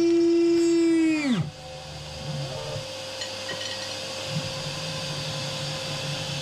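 CNC router spindle running at a steady high whine, then bogging down about a second and a half in, its pitch falling sharply as it stalls: the spindle has crashed down into the carbon-fibre plate it was milling. A quieter steady whine and hum carry on afterwards.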